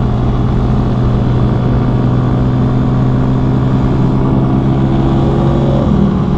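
CFMoto Papio XO-1 minibike's single-cylinder engine running at a steady cruising pitch while riding, with a dense low rumble under it.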